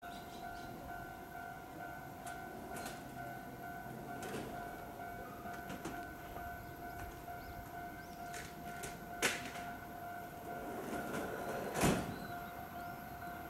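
Railway warning alarm ringing steadily as a train approaches the station, with two sharp knocks about nine and twelve seconds in.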